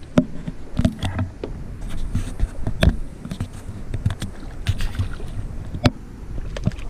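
Scattered, irregular knocks and clicks on a fiberglass bass boat, over a low steady rumble.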